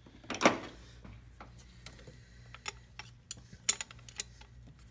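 Metal wrench clicking against a 13 mm injection pump mounting bolt as it is fitted on to loosen the bolt: one knock about half a second in, then a string of sharp, irregular clicks.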